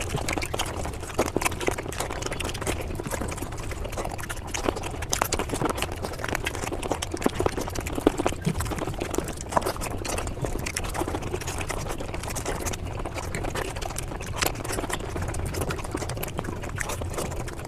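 Mukbang eating sounds played at five times normal speed: chewing and mouth noises packed into a dense, rapid run of clicks and crackles.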